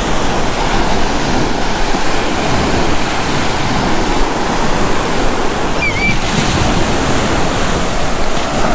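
Ocean surf washing onto the beach, with wind, as a steady wash of noise; a brief high chirp sounds about six seconds in.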